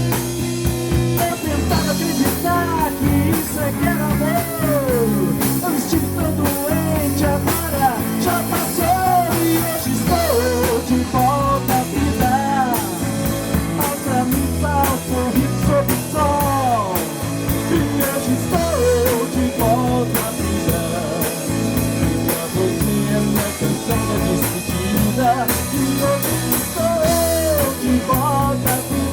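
Rock band music: an instrumental passage with a lead line that bends up and down in pitch over bass and a steady drum beat.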